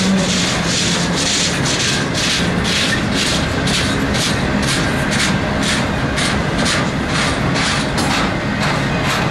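A long freight train of autorack cars rolls past close by: a steady, loud rumble of steel wheels on rail with a fast, even clickety-clack as wheel sets pass.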